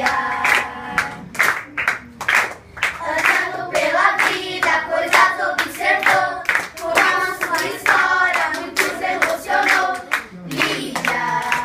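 A group of children singing a song together in unison, with hand claps keeping a steady rhythm under the singing.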